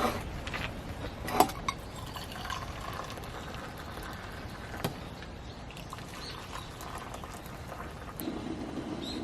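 Water being poured and sloshed in a cooking pot, with a sharp knock about a second and a half in and a couple of lighter clicks, over a steady background of wind and rain.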